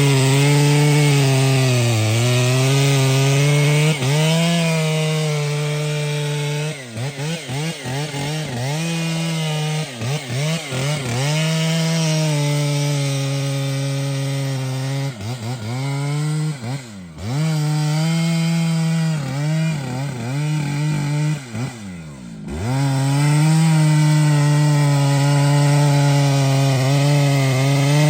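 Large two-stroke chainsaw cutting into a big tree, running at high revs. In the middle its engine speed drops and picks up again many times, twice falling steeply almost to idle, before it settles back to a steady high-revving cut near the end.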